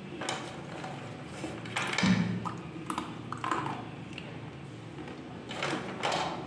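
Slate pencils being bitten and chewed, a series of short, sharp, dry crunches coming in clusters, mixed with the clicking of slate pencil sticks against each other as a hand picks through the pile.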